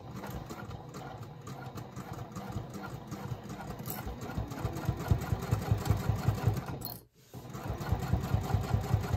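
Sewing machine topstitching through layered cork and lining fabric, the needle running in a quick, even rhythm. It grows louder and more distinct about five seconds in and breaks off briefly about seven seconds in.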